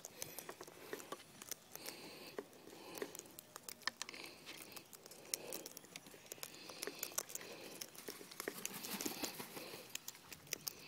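Sulphur-crested cockatoos feeding from a metal frying pan of mixed seed: a dense, irregular run of small clicks and crunches as their beaks crack seed and knock against the pan.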